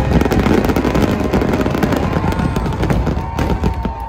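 Dense fireworks barrage: rapid, overlapping bangs from shell bursts over a continuous crackle.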